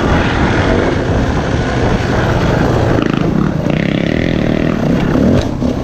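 Dirt bike engine running steadily while riding a bush track.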